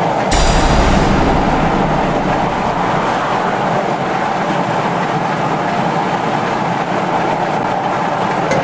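Steady road noise of a car driving at highway speed, heard from inside the cabin: tyre and wind noise. About a third of a second in there is a short, louder rush with a low rumble.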